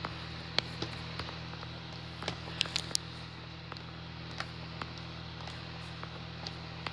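White slime squished and kneaded by hand, giving small irregular pops and clicks, with a quick cluster of them about two and a half seconds in, over a steady low hum.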